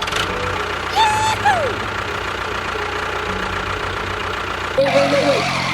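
Small engine running steadily. A few short pitched tones sound over it, one held and then falling in pitch about a second and a half in, and more near the end.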